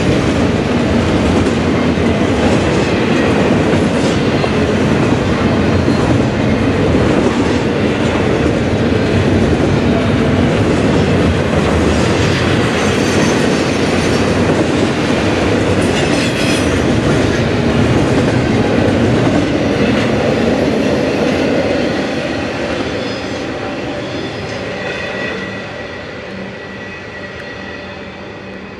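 Double-stack intermodal freight train's container well cars rolling past, a loud steady rumble of steel wheels on rail with occasional knocks. The sound fades over the last several seconds as the end of the train goes by.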